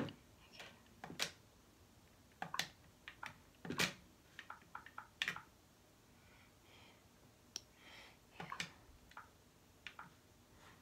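Faint, irregular light clicks and taps of fingers typing on a device, in short clusters, the loudest about four seconds in.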